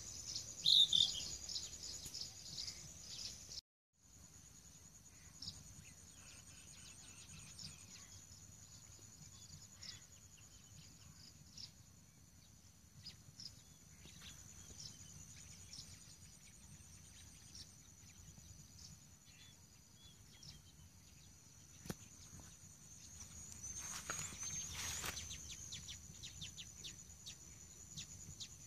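Steady high-pitched drone of insects in the vegetation, with a brief bird chirp about a second in.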